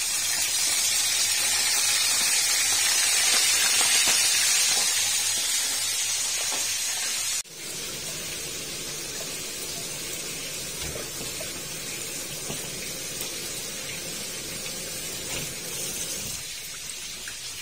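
Sea bream pieces sizzling as they fry in hot oil in a wok, a loud, steady hiss. About seven and a half seconds in it cuts to a quieter, steady rush of tap water splashing over pak choy in a plastic colander as it is rinsed by hand.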